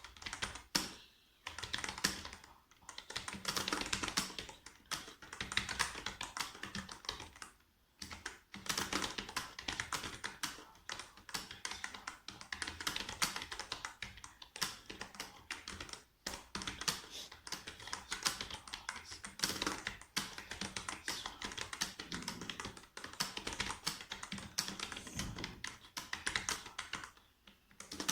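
Fast touch-typing on a computer keyboard: a rapid, continuous stream of key clicks, broken by a few short pauses.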